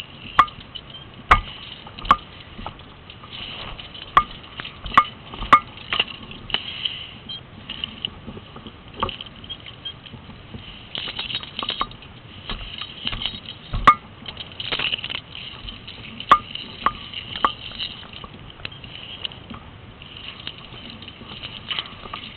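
Irregular sharp clicks and knocks, about a dozen spread unevenly, over a steady rustling hiss: handling and work noise on a steel tank roof.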